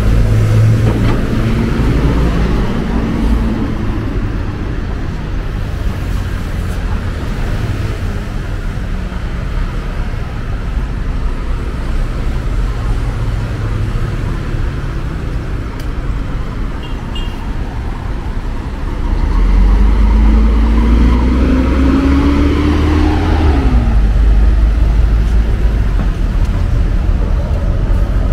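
Busy city avenue traffic: a steady rumble of cars and buses. About two-thirds of the way through, a bus pulls away close by, its low rumble swelling and a rising engine whine climbing for about four seconds before dropping off sharply.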